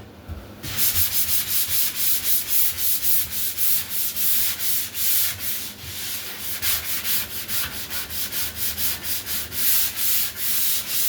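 Sanding sponge rubbed back and forth by hand over dried drywall joint compound, in quick, even strokes of about three a second, starting just under a second in.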